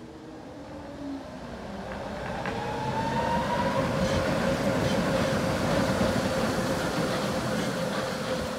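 Tatra tram passing, its traction motors whining in a tone that rises over the first couple of seconds and then holds steady over the rumble of wheels on rails. It grows louder to a peak in the middle and fades toward the end.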